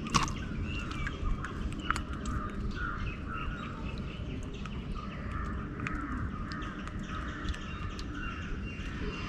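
Birds calling again and again in the background over a low steady rumble, with scattered sharp clicks and knocks as a hooked fish is handled and unhooked in a boat; the loudest knock comes just after the start.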